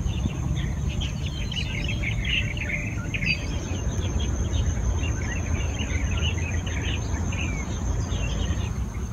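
Small birds chirping in many quick, busy calls over a steady high-pitched insect drone, with a low steady rumble underneath.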